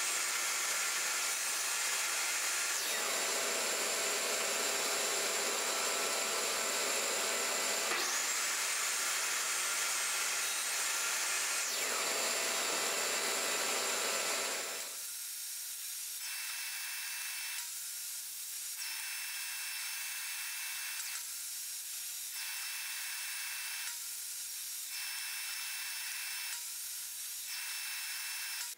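Jobsite table saw running while a half-lap is cut with a crosscut-fence jig. The motor whine rises near the start, falls away about three seconds in, and rises and falls again between about eight and twelve seconds. In the second half the saw runs more quietly, with a regular dip in the sound every two to three seconds.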